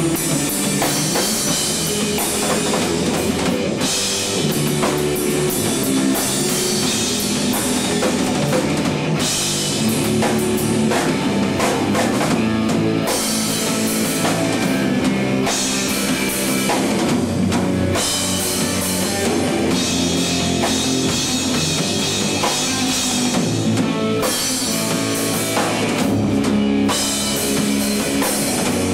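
Rock music played by a full band, with drum kit and guitar driving at a steady, loud level.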